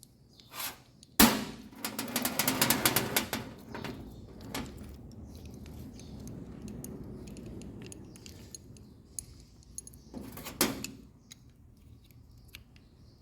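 Metal parts and hand tools clinking and rattling during work on a dryer's pulley assembly. There is a sharp metallic knock about a second in, then a quick run of rattling clicks for about two seconds, scattered small clinks, and another knock near the ten-second mark.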